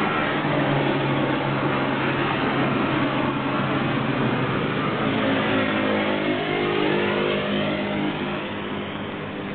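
Honda CBR400 motorcycle exhaust, the engine revving so its pitch rises and falls, loud throughout and easing a little near the end. A truck engine runs under it in the first few seconds.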